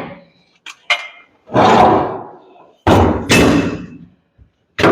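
Heavy steel pieces clanking and thudding in a car trunk: a few light clicks, then two loud clunks about a second apart, each ringing away slowly.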